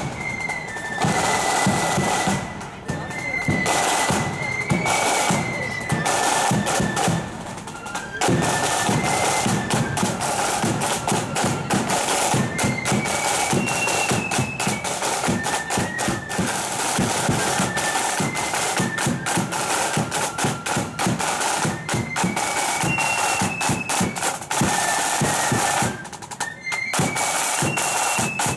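Marching flute band playing a tune: a high flute melody over a steady beat of side drums and bass drum.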